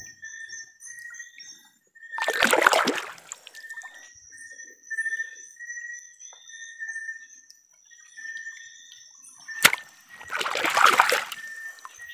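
Hands plunging into shallow river water to grab a freshwater shrimp, making two loud splashes about eight seconds apart, the second just after a sharp click. A steady high chirping runs in the background.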